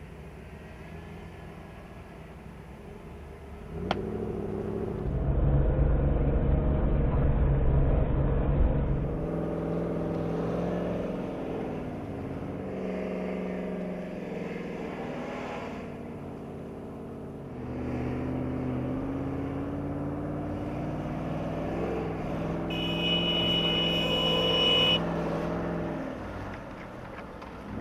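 Jeep Cherokee XJ engine revving and labouring as it climbs a muddy off-road rut, the pitch rising and falling with the throttle. It is loudest about a fifth of the way in, and a brief high whine sounds near the end.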